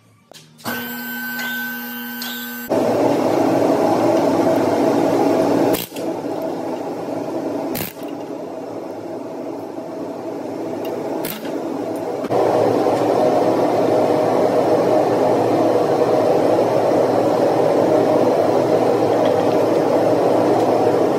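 A machine running steadily and loudly, an even mechanical noise with a few brief breaks, growing louder and steadier from about twelve seconds in.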